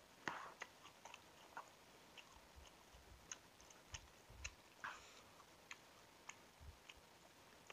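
Faint close-up eating sounds of a man chewing noodles: scattered soft wet clicks and smacks of the mouth, with a couple of brief louder noisy sounds, one right at the start and one about five seconds in.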